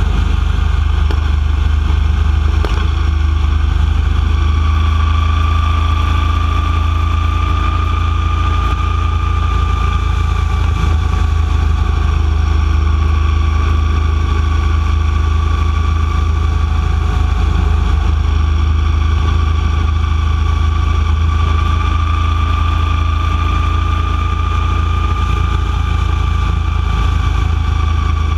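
Motorcycle travelling at a steady road speed: a continuous low rumble with a steady high whine that comes in about five seconds in and holds, rising and falling only slightly.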